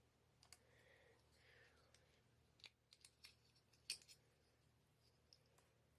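Faint clicks of binder clips being squeezed open and snapped shut onto a folded paper vacuum bag, a handful of them spread out, the sharpest about four seconds in, with faint paper rustling near the start.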